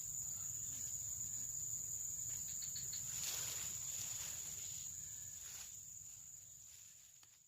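Steady high-pitched insect trill, like crickets, held without a break and fading out over the last couple of seconds.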